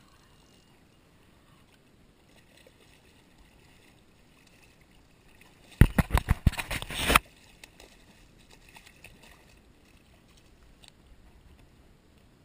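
A hooked redfish (red drum) thrashing and splashing hard at the water's surface beside a kayak, a rapid cluster of loud splashes about six seconds in that lasts around a second and a half, as it is brought to the net.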